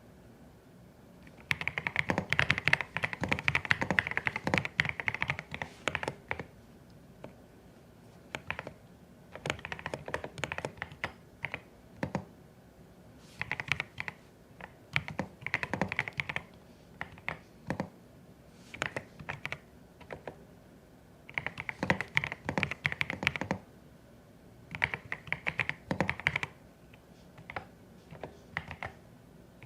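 Typing on a CIDOO ABM081 Stellar mechanical keyboard with Carda switches: bursts of rapid keystroke clicks broken by short pauses, the longest and busiest run from about two to six seconds in.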